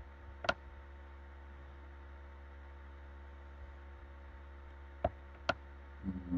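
Steady electrical mains hum on the recording, with three sharp clicks from a computer mouse: one about half a second in and two close together near the end.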